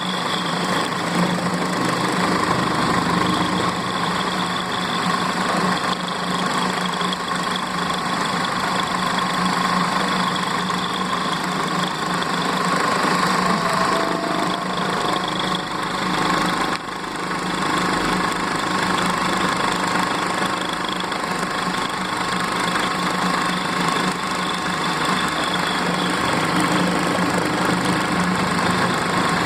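CNC milling machine running: a steady mechanical hum with a constant high whine over it. The sound dips briefly about halfway through.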